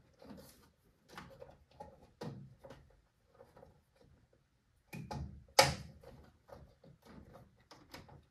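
Hands working plastic parts and wiring inside a gas boiler's cabinet: scattered light clicks and rustles, with one loud sharp click about five and a half seconds in.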